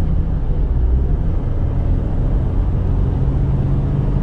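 Chevrolet Trailblazer's 2.8-litre four-cylinder turbo diesel running under way, heard from inside the cabin as a steady low hum with road noise.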